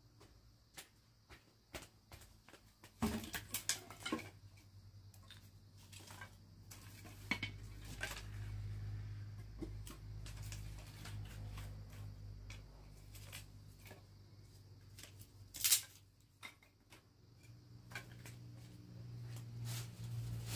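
Scattered clinks and knocks of objects being handled, with a sharp knock near the end, over a low steady hum.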